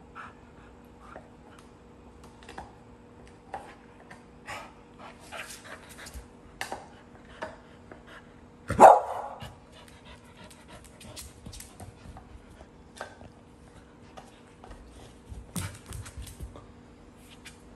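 Pet dogs panting and mouthing a toy, with many soft short clicks, and one loud single dog bark about nine seconds in. A few louder rustling noises near the end as the small white dog gets up off the floor.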